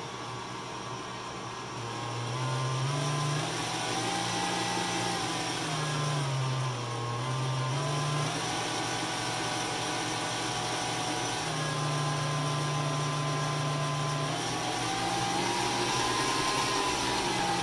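Cuisinart stand mixer's motor running, working flour into beaten eggs for noodle dough. Its hum steps up and down in pitch every few seconds as the motor's speed shifts.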